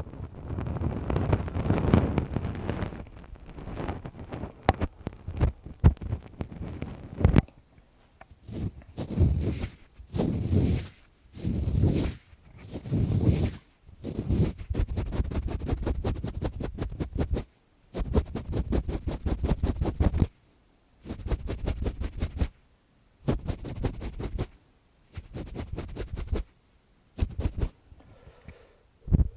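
Lace-gloved fingers rubbing and scratching right against the microphone: dense crackly rustling in bursts of one to several seconds, broken by short pauses.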